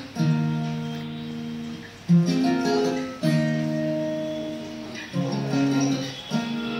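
Acoustic guitar strumming a slow run of chords, each chord struck once and left to ring for a second or two before the next.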